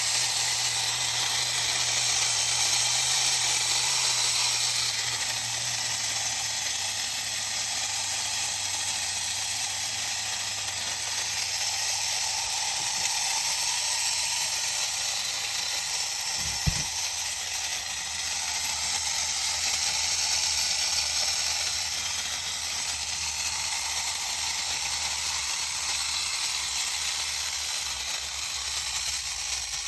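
Clockwork mechanism of a vintage Occupied Japan tin wind-up toy running, a steady whirring buzz, with a single click about 17 seconds in.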